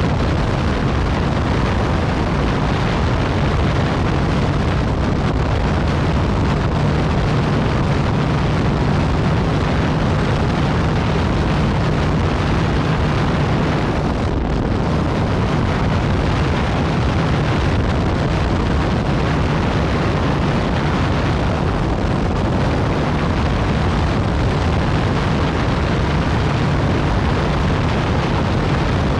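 Yamaha MT-09 Tracer's three-cylinder engine running through an Akrapovic exhaust at a steady cruising pace, mixed with heavy wind rush, with one brief dip in the note about halfway through.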